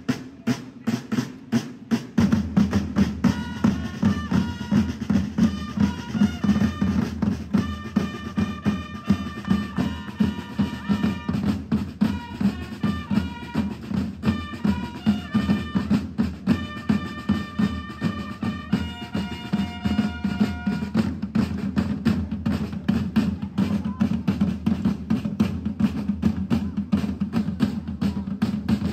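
A corps of marching side drums beating a steady rhythm together. From about three seconds in until about two-thirds of the way through, a high melody of held notes plays over the drumming.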